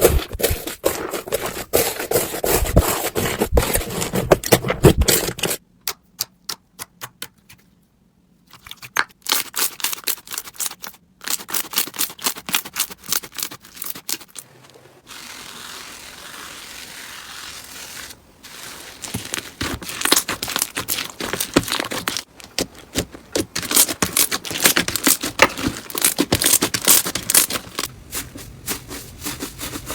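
Hands squeezing, pressing and stretching slime, giving dense crackling and popping with many sharp clicks. The sound changes character several times as different slimes follow one another, with a steadier scraping hiss partway through.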